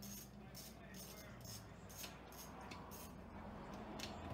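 Faint, irregular metallic clicking of a hand wrench working the 10 mm bolts of the reverse gear selector loose on a Honda S80 manual transmission's aluminium case, about two to three clicks a second.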